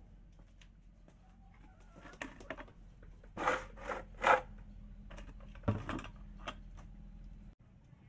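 Plastic bucket and lid being handled on a tiled floor: a few short knocks and scrapes, clustered in the middle and once more about six seconds in, over a faint steady hum.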